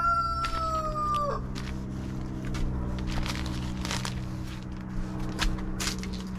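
Rooster crowing, the long held end of the crow sagging slightly in pitch and cutting off about a second and a half in. Scattered light clicks and knocks follow over a steady low hum.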